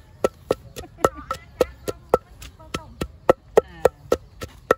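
Knife chopping on a wooden cutting board in quick, steady strokes, about three or four a second, each with a short ring.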